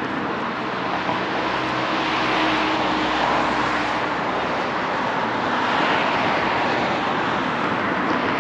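Road traffic going by, a steady rushing noise that swells and fades as vehicles pass.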